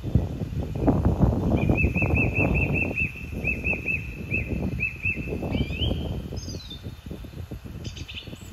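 A small bird calling a quick run of short, same-pitched notes, about five a second in broken bursts, then a few higher notes that slide up and down. Beneath it, a low, uneven rumble of wind buffeting the microphone, the loudest sound in the first few seconds.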